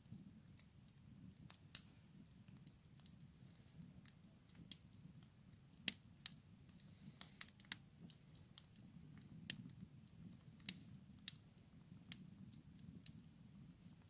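Wood fire in a metal fire pit crackling quietly, with scattered sharp pops at irregular intervals, the loudest about six seconds in and again near eleven seconds, over a faint low rumble.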